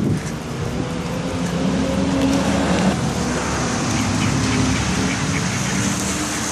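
Motor traffic on a rain-soaked road: a car running past, engine tone drawn out over the wet road noise of heavy rain.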